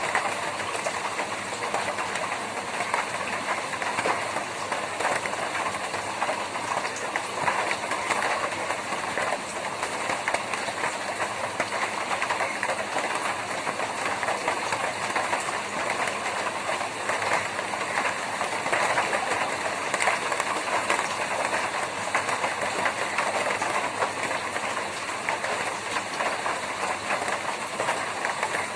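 Rain drumming steadily on a tin roof: a dense, even patter of countless drops striking the metal sheets.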